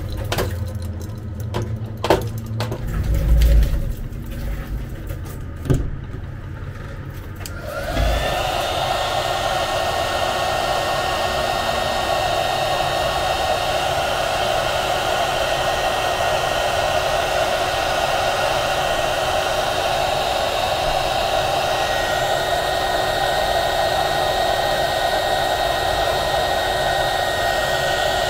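Handheld hot-air gun switched on about 8 seconds in and blowing steadily, shrinking adhesive-lined heat-shrink tubing over a soldered wire joint. Before it starts there are a few light clicks and knocks.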